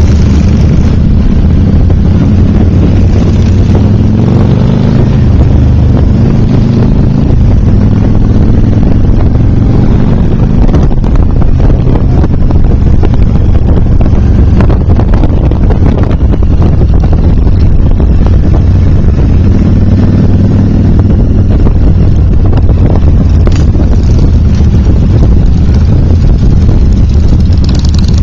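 A column of motorcycles riding at close range, their engines making a steady low drone, with wind buffeting the microphone.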